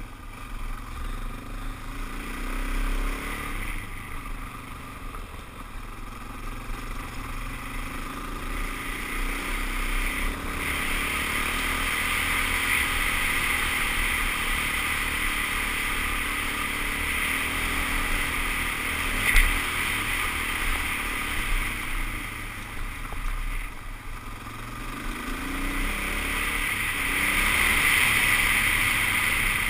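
Suzuki DR-Z400S single-cylinder four-stroke engine running under way, its pitch rising and falling with the throttle, over a steady rush of wind and tyre noise. A single sharp knock comes about two-thirds of the way through.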